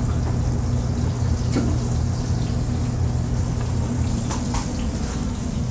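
Steady low hum under an even hiss of background noise, with a few faint clicks.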